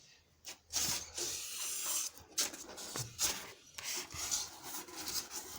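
Irregular rubbing and scraping with short clicks and knocks: objects being handled and moved by hand.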